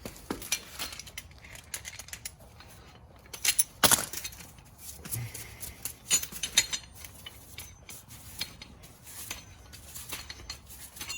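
Metal clinks and rattles from a slide hammer and its CV axle puller fork adapter being handled and threaded together, with louder knocks at about four seconds and again at about six and a half seconds in.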